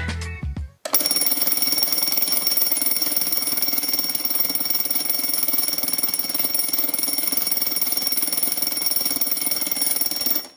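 A steady high-pitched tone with several fixed pitches over a hiss. It starts suddenly about a second in and cuts off just before the end.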